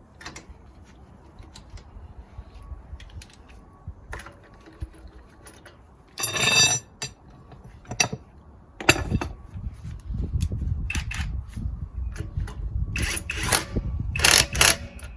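Impact wrench running wheel bolts into a car's hub in short bursts: one brief whine about six seconds in, then repeated loud bursts over a low rumble in the second half. Clicks of tools and bolts being handled come in between.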